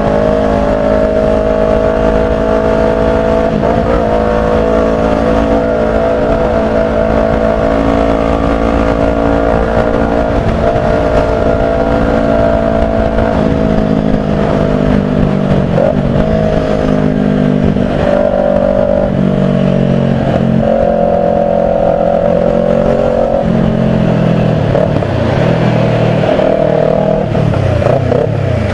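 Kawasaki Ninja 400's parallel-twin engine running steadily under way, over a constant rush of wind and road noise. From about halfway through, the engine note drops in several steps as the throttle comes off.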